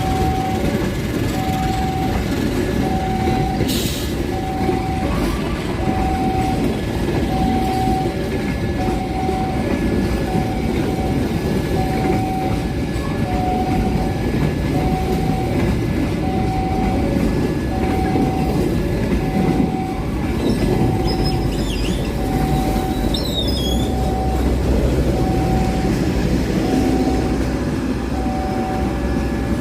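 Argo Wilis passenger train pulling out and rolling past, a steady rumble of wheels on rails with brief high wheel squeals after about twenty seconds. A repeating electronic warning beep sounds about every one and a half seconds throughout.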